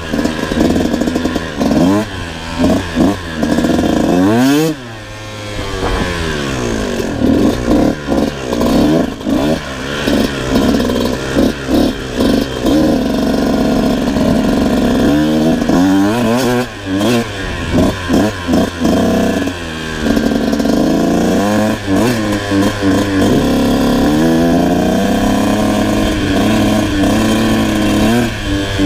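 Kawasaki KX125 two-stroke dirt bike engine being ridden, its revs climbing and dropping over and over as the rider works the throttle and gears. About four to six seconds in there is a longer drop in revs.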